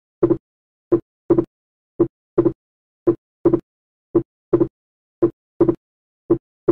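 Heart sounds over the pulmonary area, about one beat a second: a single first sound followed by a second sound split into two close thuds. This is the wide, fixed splitting of S2 in atrial septal defect, with the split the same from beat to beat and not varying with breathing.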